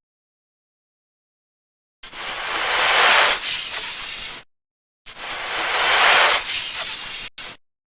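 Snake hiss sound effect played twice, each a long hiss that swells and then cuts off abruptly, starting about two seconds in, with a short extra hiss near the end.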